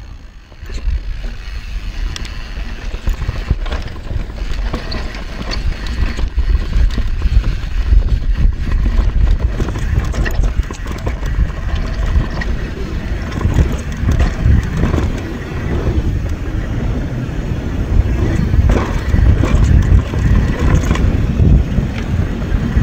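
YT Tues downhill mountain bike ridden fast down a dirt trail: knobby tyres rumbling over the dirt, with steady clatter and knocks from the bike over bumps and wind rushing across the camera microphone.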